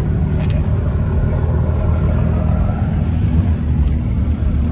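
Low, steady engine rumble of supercars creeping out at low speed: a second-generation Ford GT's twin-turbo V6 passing, then a Dodge Viper's V10 coming up behind it.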